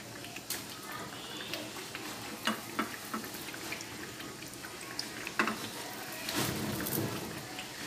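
Breaded chicken patties deep-frying in hot oil: a steady sizzle with scattered crackling pops. About six seconds in a louder, fuller rustle rises over it for about a second.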